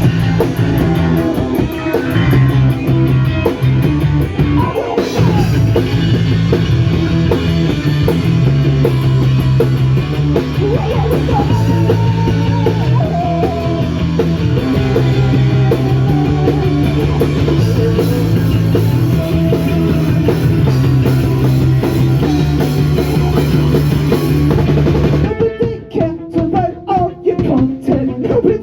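Punk band playing live: drum kit, distorted electric guitar and bass, loud and dense. About 25 seconds in, the full band drops out to a sparser, choppier part.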